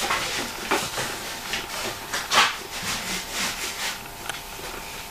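A wooden lipping strip being slid and pressed along the edge of a curved worktop, between the clamps: a run of short rubbing and scraping sounds with light knocks, the loudest about two and a half seconds in.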